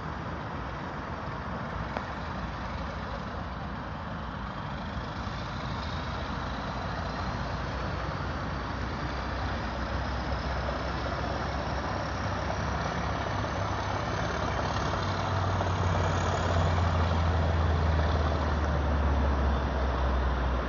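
An approaching train's diesel engine: a low hum that grows steadily louder through the second half, with a faint whine rising in pitch over the middle part.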